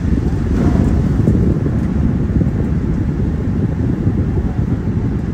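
Wind buffeting the microphone of a phone filming from a moving car, mixed with road noise from driving on a wet road: a steady, deep rushing noise with no breaks.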